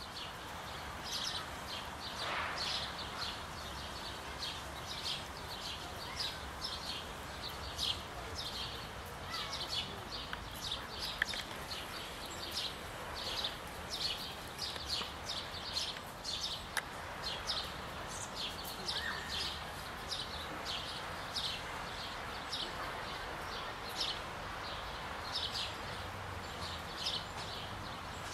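Nestling bird in a tree-hole nest, close to fledging, calling without a break: short high calls repeated about two or three times a second, over faint steady background noise.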